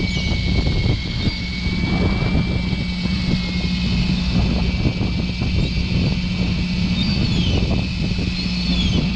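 Steady low drone of a fishing boat's engine over the wash of water below the hull, with a few short high cries from seagulls about halfway through and again near the end.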